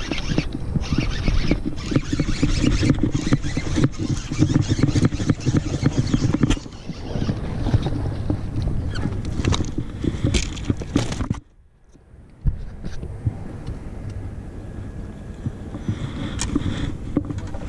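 Bass boat under way on the river, a steady run of motor and water noise. It breaks off for about a second past the middle and comes back quieter.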